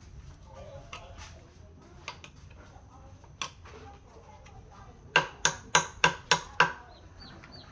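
Six sharp knocks in quick succession, about four a second, a little past the middle, over a faint background of birds chirping.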